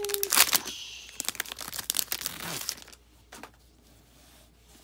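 Foil wrapper of a Pokémon booster pack being torn open and handled, a dense crackle for the first two and a half seconds, then only a few light taps.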